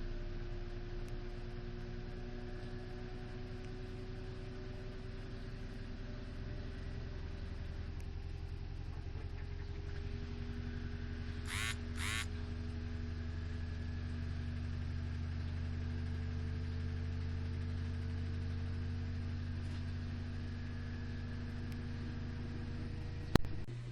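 Samsung WD136 front-load washer-dryer running, a steady motor hum whose tone slowly rises. Two short high chirps come about halfway through, and a sharp click near the end, where the low hum changes.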